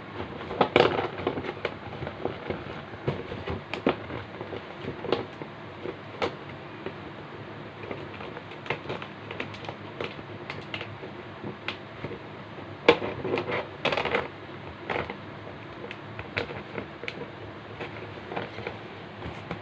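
Stiff plastic packaging crinkling and crackling as it is handled, with scattered clicks and two louder flurries of crackling, one about a second in and one around thirteen to fourteen seconds in.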